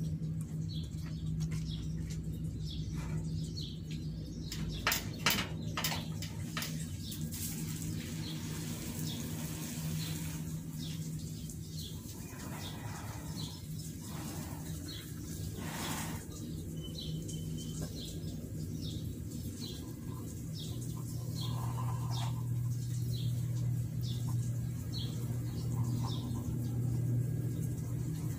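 Small birds chirping here and there over a steady low machine hum, with a few sharp clicks about five seconds in. The hum drops to a lower pitch about two-thirds of the way through.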